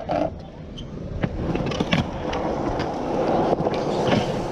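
Skateboard wheels rolling on a concrete skatepark floor close by, a steady rough rumble that builds up about a second in, with a few sharp clicks along the way.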